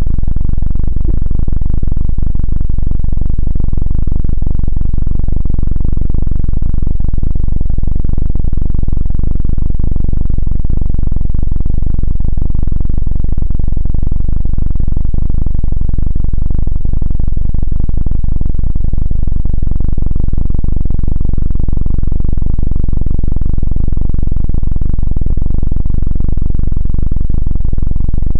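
Helicopter sound effect of the rotor and engine: a loud, steady, low drone that runs on without a break.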